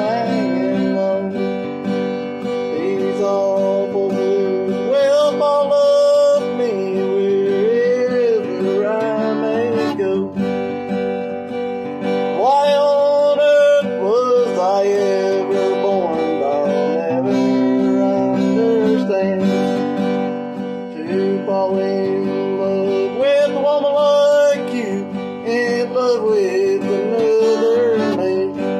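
A man singing a bluegrass song while strumming a steel-string acoustic guitar with a flatpick, in steady rhythm with phrases of melody.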